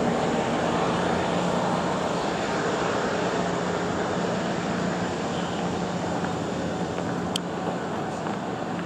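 Yoro Railway 620 series electric train rolling slowly, with a steady running drone and a low hum that ease off a little. A single sharp click comes about seven seconds in.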